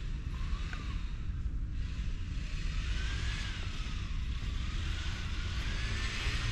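Steady outdoor rumble and hiss: a low, fluttering rumble throughout, with a hiss that swells about halfway through.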